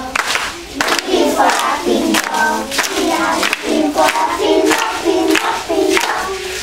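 A group of young girls singing a song together in unison, with sharp beats about twice a second under the singing.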